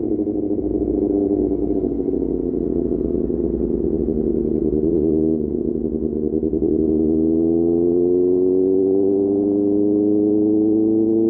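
QJ Motor SRK600's inline-four engine running through an aftermarket SC-Project exhaust while riding. The engine note falls over the first couple of seconds, dips sharply for a moment about five seconds in, then rises steadily as the bike gradually accelerates.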